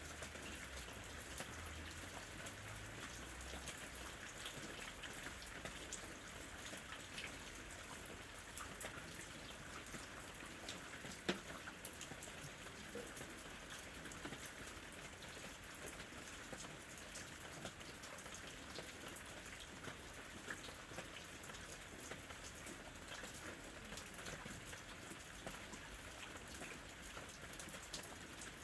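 Steady rain falling on a surface, an even hiss with many small drop ticks and one louder drop strike about eleven seconds in.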